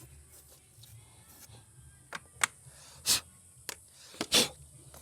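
Several sharp clicks and knocks of tools and parts being handled during battery terminal work, spaced irregularly from about two seconds in, the loudest two near the middle and near the end.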